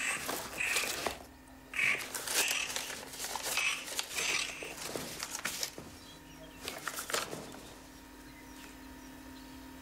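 Small zippered purse being rummaged through and banknotes handled: a run of short rustling and scraping sounds over the first five seconds or so, then quieter, over a faint steady hum.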